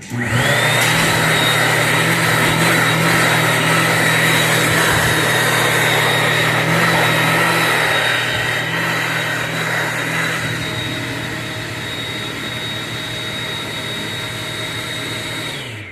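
Bobrick TrimLine hand dryer starting up and running: a loud, steady blower rush with a high whine that rises as it spins up and a low hum underneath. It eases off a little about halfway through, then winds down just before the end, its hum falling in pitch.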